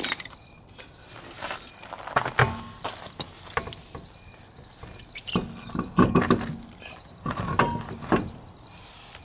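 A car wheel being put back on the hub and its lug nuts threaded on by hand: metal clinks and scuffs, with several dull knocks.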